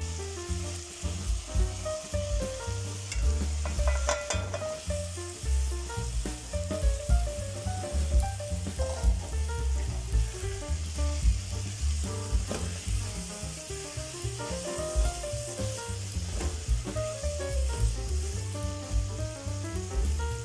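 Peas, diced carrots and tomato masala sizzling in oil in an aluminium pot as they are stirred with a spoon. Background music plays under the sizzle.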